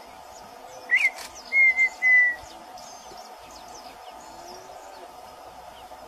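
Red-winged tinamou (perdigão) singing: a short whistle that rises then falls about a second in, followed by two longer, level whistled notes. Faint high chirps of other small birds sound behind it.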